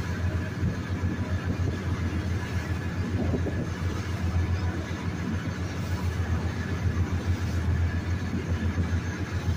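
Lobster boat's engine running steadily under way, a low drone with a fast flutter.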